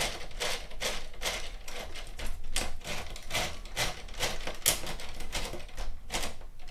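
Plastic gearing of a LEGO Technic 42006 excavator clicking and clattering as its rear drive gear is turned by hand, opening the grab: a rapid, uneven run of clicks.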